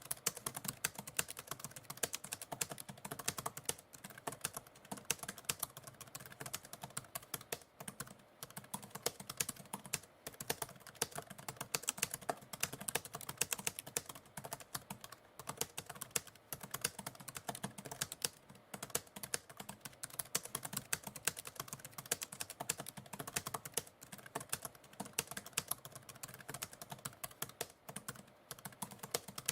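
Typewriter typing steadily: a fast, continuous run of key clicks with short pauses now and then.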